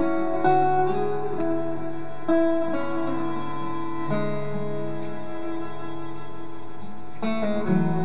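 Live acoustic ensemble playing an instrumental piece: strummed and picked acoustic guitars with bowed violin and cello, in long held notes. A new chord comes in about seven seconds in.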